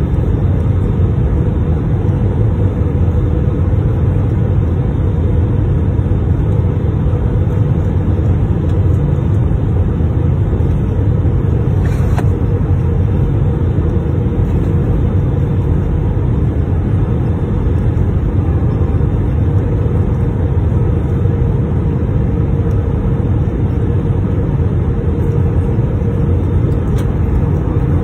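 Steady low roar of an airliner's engines and airflow heard inside the cabin, with a faint constant hum throughout and a single brief click about halfway through.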